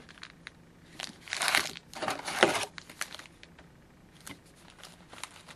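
Plastic wrapping on a sealed box of hockey card packs being torn and crinkled as the box is opened, loudest in a few bursts in the first half, then lighter clicks and rustles as the packs are handled.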